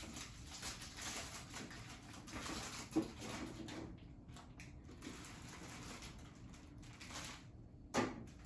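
Food containers and plastic bags being shifted around in an open refrigerator: rustling and light clatter, with a sharper knock about three seconds in and another near the end.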